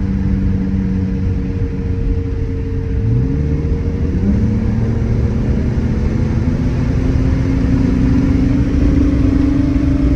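BMW E46 328i's inline-six engine pulling under acceleration, a gear change about three or four seconds in, then the engine note rising steadily as the car gathers speed. The car is running a new stage 1 tune, which the driver credits with the changed shift points.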